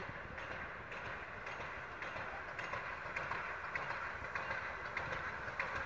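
Steam locomotive pulling a passenger train as it approaches along the line, heard as a steady rhythm of sharp beats about twice a second over a continuous rushing noise. It grows slightly louder as it comes closer.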